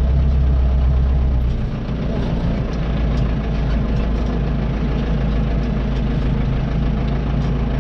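Tractor engine running steadily under the driver. Its deep low note eases off about a second and a half in, then it runs on evenly.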